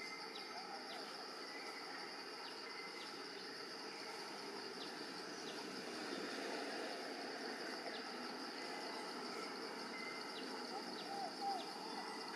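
Forest ambience: a steady high-pitched insect drone with scattered faint chirps and ticks, and a short louder call about a second before the end.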